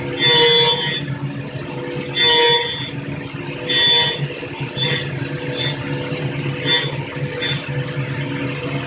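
CNC milling machine running with its end mill cutting metal: a steady spindle hum, broken by short squeals at the same pitch each time the cutter bites, three longer ones in the first four seconds and then several brief ones.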